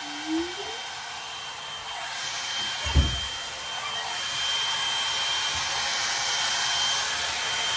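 Electric blow-dry hair tool running: a steady rush of air with a thin whine, getting louder about two seconds in as it works through the hair. One dull thump about three seconds in.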